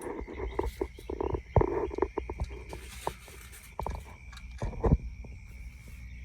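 Scattered irregular knocks, clicks and clanks of gazebo frame parts being handled and fitted during assembly, the loudest a few sharp knocks about a second and a half in and just before the five-second mark. A faint steady high tone runs underneath.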